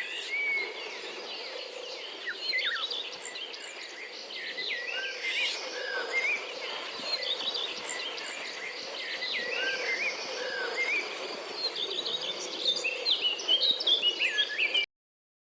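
Many birds chirping and calling, with many short rising and falling whistles, over a steady outdoor hiss. The sound cuts off suddenly near the end.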